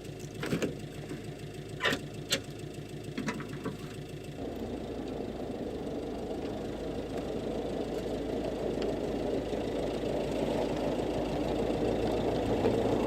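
An engine running, with a few sharp clicks and knocks over the first few seconds. About four seconds in, a louder rushing noise comes in and slowly grows.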